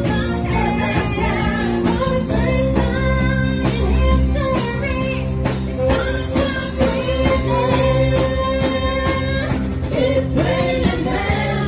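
Live party band playing a rock song: a singer over keyboard and a steady beat.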